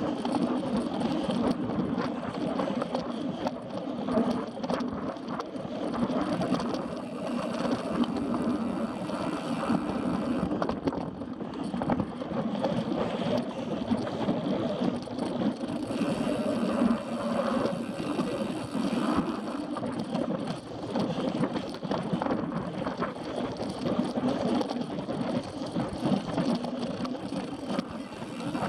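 Mountain bike ridden fast over a dirt and grass trail: a steady rumble of tyres on the ground, with many small rattles and clicks from the bike.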